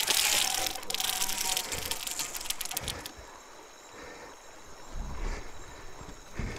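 A big-game multiplier fishing reel's drag buzzing as a hooked fish pulls line off it, a dense rapid clicking hiss for about three seconds, then quieter handling noise on the rod.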